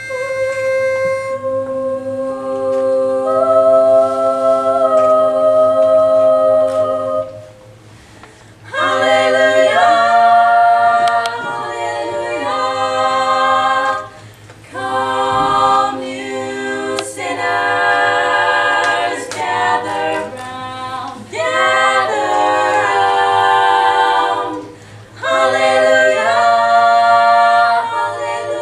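Female barbershop quartet singing a cappella in close four-part harmony: a slow introduction of long held chords, then after a short break about eight seconds in, a brisker rhythmic section sung in phrases. A single pitch-pipe note gives the starting pitch and fades about a second in.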